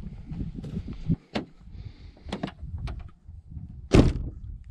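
Rustling and handling noise with several sharp knocks, the loudest a heavy thump about four seconds in.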